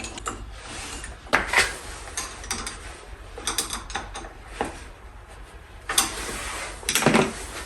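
Small snow blower carburetor parts and hand tools being handled during disassembly: a run of irregular sharp clicks and clacks of small metal pieces.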